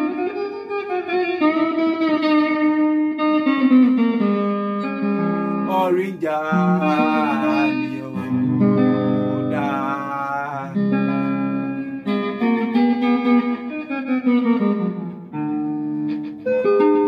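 Electric guitar playing a lyrical solo: a song's melody played as a lead line in long, held notes with vibrato and sliding, bent pitches.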